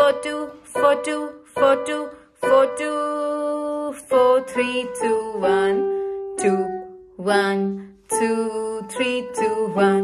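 Korg digital keyboard playing a slow melody one note at a time in the right hand. The phrase starts on B, and its notes are separated by short gaps, with a few held longer.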